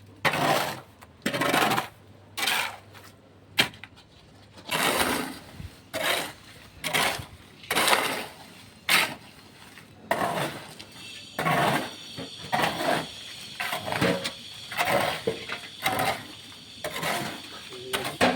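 Repeated gritty scraping strokes of hand tools working through a concrete mix, roughly one stroke a second, each lasting about a third to half a second. A steady high whine joins in about two-thirds of the way through.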